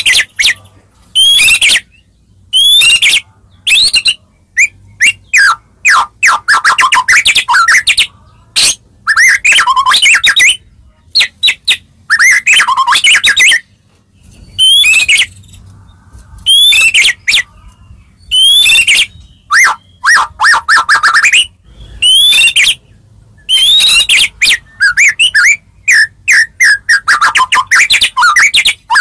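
White-rumped shama (murai batu) singing: loud phrases of rich sweeping whistles and quick chattering runs of notes, each a second or two long, with short pauses between them.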